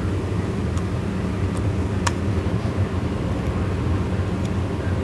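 Steady low machine hum, with a few faint clicks of small metal clutch parts, the sharpest about two seconds in, as a retaining ring and keepers are worked onto a Mercury clutch shaft by hand.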